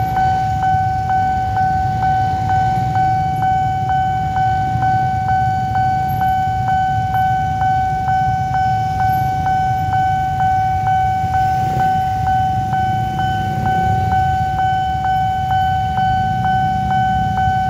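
Railway level-crossing warning bell ringing: an electronic two-note ding repeated steadily, nearly three times a second. Under it runs the low rumble of waiting motorcycle and car engines.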